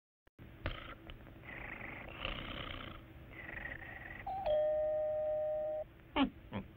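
Cartoon sound effects: a few breathy hisses, then a held whistle-like note of about a second and a half that cuts off, then two short downward-gliding whoops near the end.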